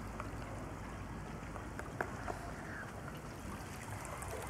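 Small waves lapping gently against shoreline rocks and wooden jetty posts, with small splashes and trickles over a low, steady rumble.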